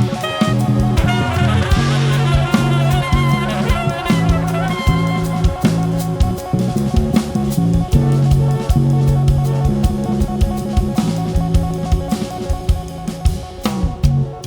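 Live band playing: drum kit with snare and kick hits over a steady bass line, with guitar and a busy melodic line in the first few seconds.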